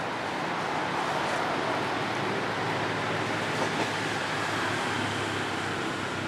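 Steady outdoor background rush with no distinct animal calls.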